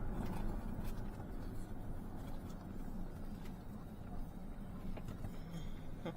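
Steady low hum of a car's engine and tyres heard from inside the cabin while driving, with a few faint clicks.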